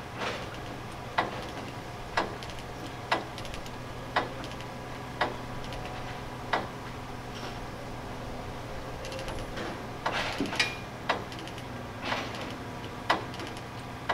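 Sharp knocks, roughly one a second, then a quicker cluster about ten seconds in, over a steady low hum.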